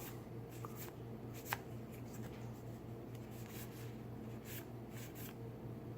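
Magic: The Gathering trading cards being handled and flipped through, giving soft scattered swishes and light ticks of card against card, with a sharper tick about a second and a half in. A steady low electrical hum runs underneath.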